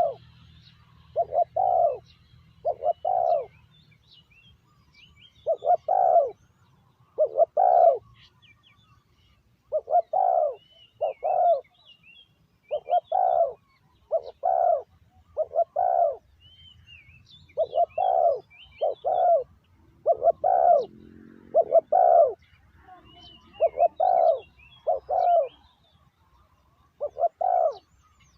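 Spotted dove cooing over and over, in repeated phrases of two or three low coos with short pauses between. Faint high chirps of small birds sound underneath.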